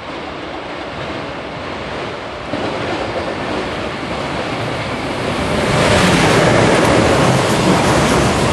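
Electric-locomotive-hauled container freight train running through a station. Its rumble builds steadily as it approaches and turns loud about six seconds in as the train draws level, then the container wagons roll past.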